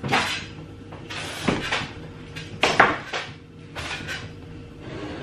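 A large plastic water bottle being handled on a table: four or five short crinkling and knocking noises, the loudest a little under 3 s in, over a faint steady hum.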